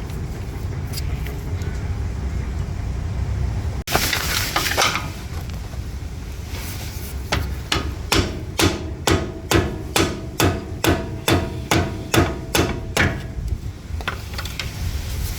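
A steady run of sharp metallic knocks, about two or three a second for some six seconds, from hand tools working the 12 mm yoke bolt on a Toyota Land Cruiser 200 series steering rack. A brief scrape comes just before them.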